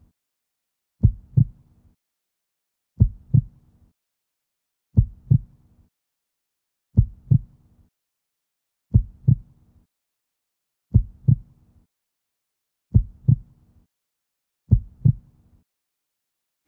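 Heartbeat sound effect: slow, low paired lub-dub thumps, one pair about every two seconds, eight times, with silence between.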